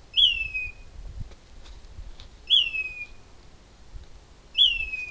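A bird calling at night: a short, loud whistled note, sliding down in pitch, repeated three times about two seconds apart.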